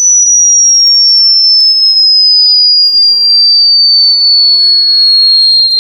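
A loud, very high-pitched pure tone, like a sine wave, gliding slowly and steadily down in pitch.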